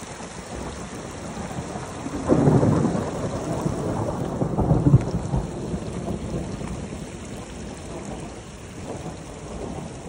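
Monsoon rain falling steadily, with a rumble of thunder that swells about two seconds in and dies away over the next few seconds.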